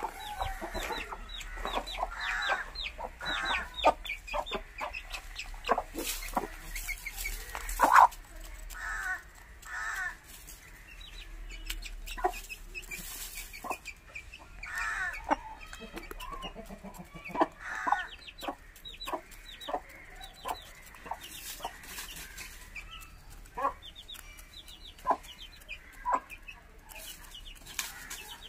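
Aseel chickens clucking with many short calls, a busy run of calls in the first ten seconds and scattered single clucks after that.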